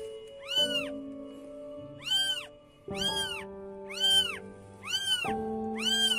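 Five-day-old kittens mewing, short high rising-and-falling cries about once a second, over background music of sustained chords.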